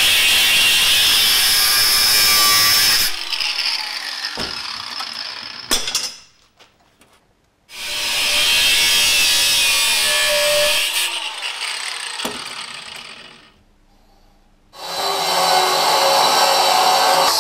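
Angle grinder cutting steel, throwing sparks. It runs in three spells, and twice it is switched off and winds down before starting again, about eight and fifteen seconds in.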